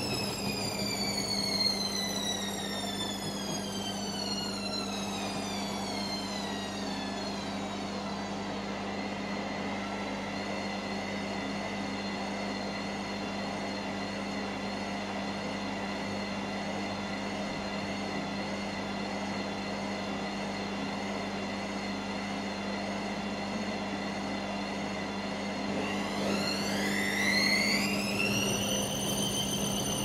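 Candy washing machine on its spin cycle, its motor whining over a steady hum. The whine falls in pitch over the first several seconds as the drum slows, holds steady, then climbs quickly near the end as the drum speeds back up.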